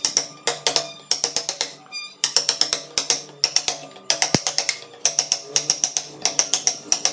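Carving chisel being struck into a wooden block in quick runs of sharp knocks, several a second, with short pauses between runs.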